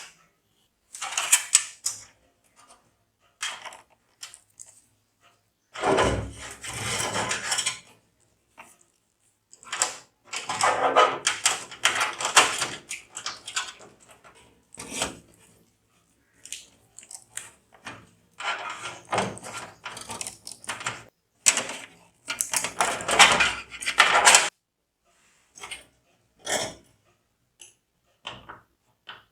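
Hands handling computer parts during a PC build: irregular clicks, clatter and rustling, in several busy stretches of a second or two with short pauses between.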